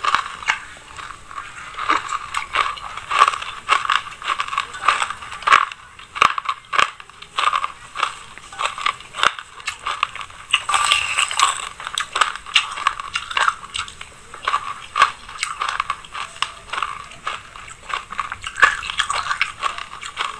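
Close-miked chewing of a mouthful of dry sesame seeds: dense, irregular crunching and crackling that goes on without a break.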